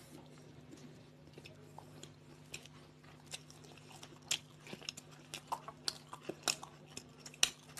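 Two people biting into and chewing toasted sandwiches, with short sharp crunches of the toasted bread that come more often and louder in the second half. A faint steady hum runs underneath.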